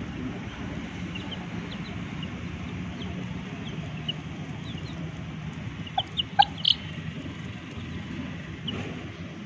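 Domestic chicks peeping in short, high, scattered chirps, with a quick run of four louder chicken calls about six seconds in.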